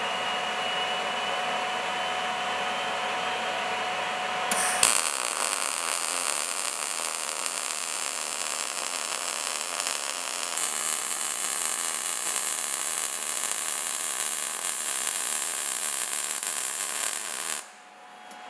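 Jasic EVO 160 synergic MIG welder: a steady hum, then about five seconds in the arc strikes with a pop and runs as an even, continuous crackle for about thirteen seconds before stopping. It is short-circuit MIG welding on 2 mm steel at about 90 amps with the voltage trimmed down half a volt, a setting the welder judges good for an outside corner joint.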